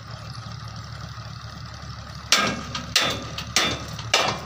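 Hino dump truck's diesel engine idling steadily, with four sharp metallic knocks in the second half from the rear tailgate latch being worked open.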